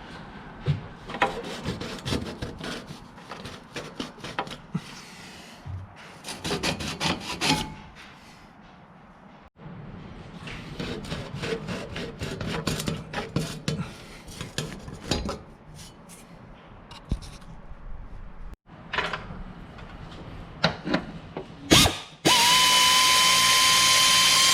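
Hand tools clicking and scraping in repeated short strokes during propeller shaft repair work. Near the end a power tool runs with a steady high whine for about two seconds.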